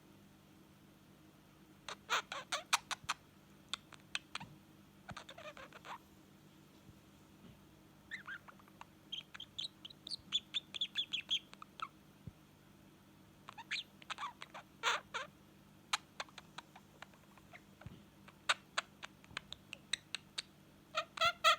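Young budgerigar chattering in its baby voice: bursts of rapid clicks and short chirps with pauses between them, starting about two seconds in.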